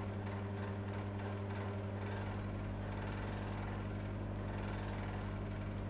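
A steady low hum with faint scattered ticks.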